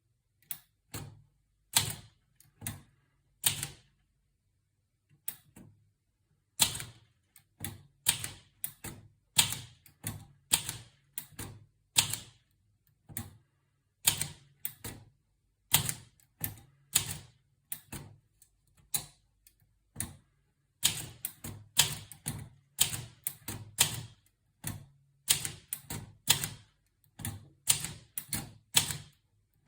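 Keys of an Olivetti Lettera 32 portable typewriter being struck: a few spaced keystrokes, a short pause about four seconds in, then a steady run of typing that grows quicker over the last third.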